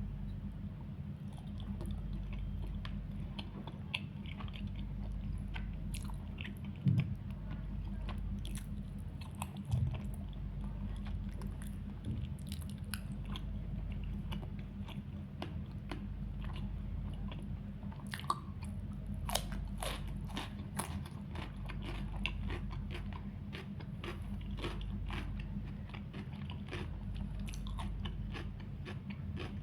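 Close-up chewing and biting of food, with irregular small crunches and wet mouth clicks throughout, more frequent in the second half, over a steady low hum.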